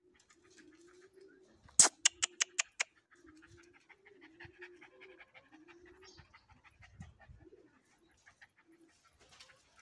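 A small white Pomeranian yapping: a quick run of six sharp yaps, about five a second, around two seconds in. A faint wavering low call and light ticking go on beneath it the rest of the time.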